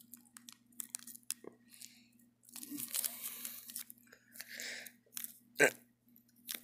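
Light clicking, scratching and scraping of prying at a model hopper car to work its coal load loose, with a longer scrape around the middle and one sharp click about five and a half seconds in. A faint steady hum runs underneath.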